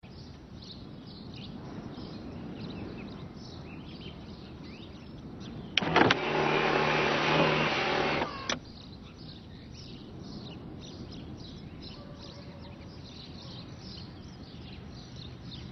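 Ford Ka's electric sunroof motor running for about two and a half seconds, starting with a click about six seconds in and stopping with another click, over steady birdsong.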